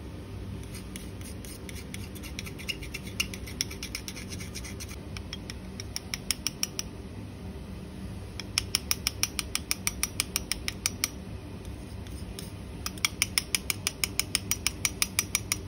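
Metal spatula tapping and scraping against a mortar to knock ground powder out into a glass beaker: light scraping, then three runs of quick light ticks, several a second, the last two the longest.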